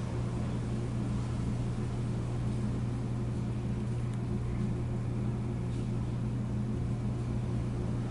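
Steady low mechanical hum of indoor building background noise, unchanging, with a few faint steady overtones. The distant C-17 jet engines are not heard.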